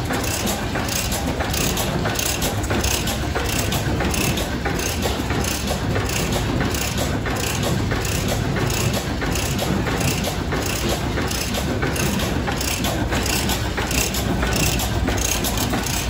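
Antique stationary farm gas engines running, a steady mechanical clatter of about two beats a second over a low rumble.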